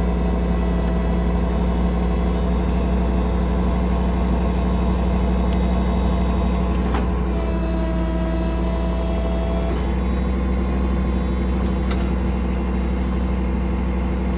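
Miller Trailblazer engine-driven welder-generator running steadily alongside the truck's engine. A faint extra steady tone comes in for about two seconds past the middle, begun and ended by clicks.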